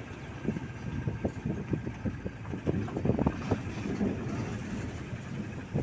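Tourist jeep driving uphill, its engine running under frequent irregular rattles and knocks from the body as it bounces along the road.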